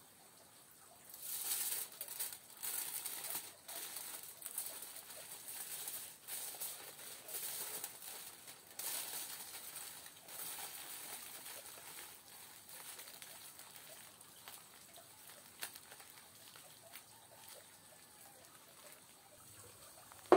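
Food sizzling and crackling on hot stones, starting about a second in and slowly dying away.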